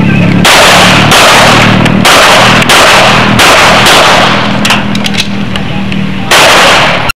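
A string of pistol shots, about seven at uneven spacing, fired from a handgun at targets in a practical shooting stage. Each shot is very loud, near the top of the recording's range.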